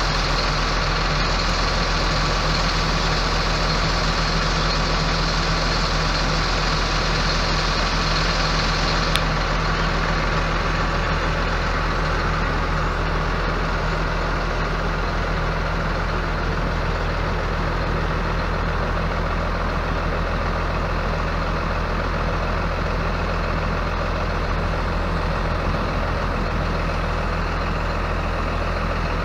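Cummins ISB 5.9-litre inline-six turbo diesel of a Ford F800 truck running steadily at idle, with a hiss above it that drops away about nine seconds in.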